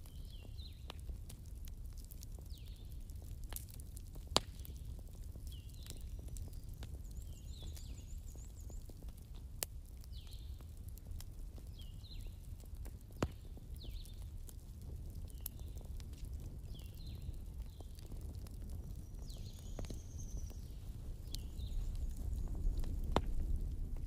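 Wood fire in a fireplace crackling over a low steady rumble, with scattered clicks and a few sharp pops standing out. Faint short chirp-like sounds recur about every second, and the rumble grows a little louder near the end.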